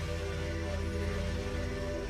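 Background music: slow instrumental music of held, sustained notes over a steady low drone.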